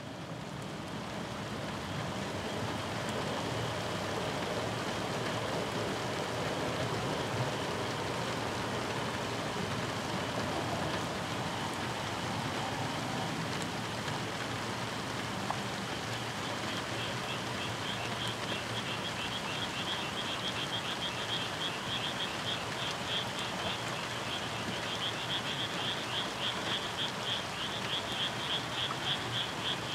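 Frogs calling in fast pulsed trills, growing stronger from about halfway through, over a steady hiss of background noise.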